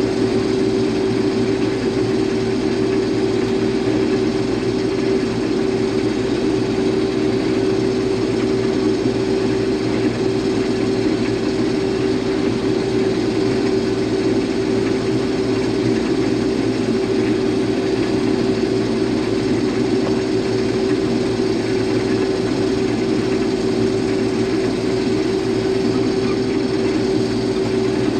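Combine harvester running steadily at working speed, a constant engine drone with a strong unchanging hum.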